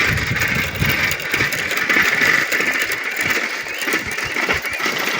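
Bicycle rattling and clicking while coasting downhill, over steady wind noise on the microphone; the rider hears it as a noise that means something is wrong with the bike.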